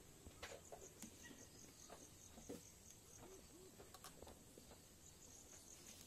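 Near silence: faint insect chirping in a steady pulse of about four chirps a second, with a few soft taps of a fork and knife on a plastic plate.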